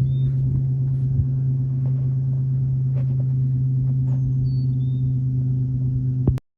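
Chainsaw running steadily at full throttle under load, ripping a log lengthwise in a chainsaw mill near the end of a slab cut. The sound cuts off abruptly near the end.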